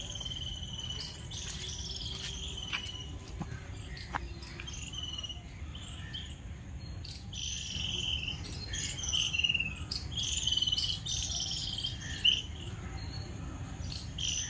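Small birds chirping and calling in short, varied phrases, some notes falling in pitch, with a few scattered clicks.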